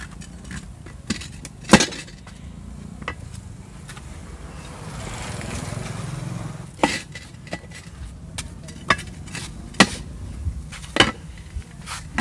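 Iron tyre levers working a tempo tyre's bead off its steel rim, with sharp metal clinks of bar against rim every second or two, loudest about two seconds in. A low steady rumble runs underneath and swells in the middle.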